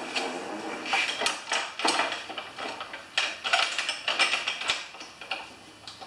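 A walk-behind lawn mower pushed about on a concrete floor with its engine off, its wheels and deck giving irregular clicks and rattles.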